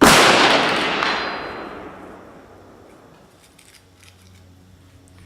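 A single shot from an AR-15 rifle chambered in .223, a sudden loud report that echoes and dies away over about two seconds.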